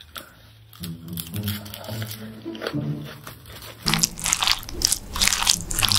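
Close-miked eating sounds: chewing and biting, with crisp wet mouth noises, over background music. About four seconds in, the eating sounds become suddenly louder and denser.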